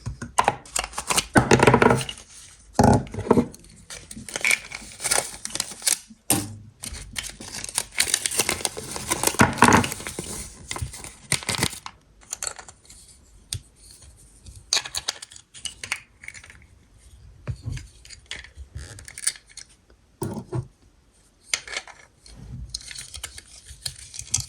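Kinder surprise egg wrapping being torn and crinkled by hand, with clicks and taps from handling the packaging. The rustling is dense through the first half and turns to scattered clicks and short crinkles after that.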